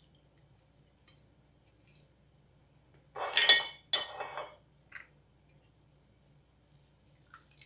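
Stainless steel hand-held lemon squeezer being handled: a few faint taps, then two sharp metallic clinks with a short ring about three and four seconds in.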